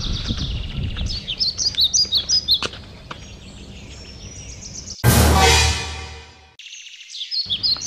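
Birds chirping, then about five seconds in a sudden loud musical hit with a held chord that fades over a second and a half and cuts off abruptly.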